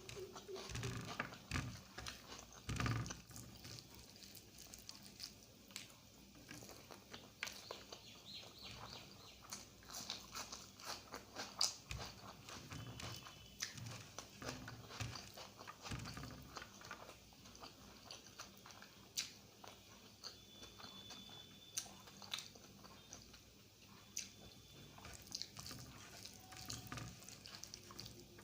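Close-miked chewing of egg curry and rice: a steady stream of wet mouth smacks and small clicks at an irregular pace, with a few louder ones about 3 seconds in and near the 12-second mark.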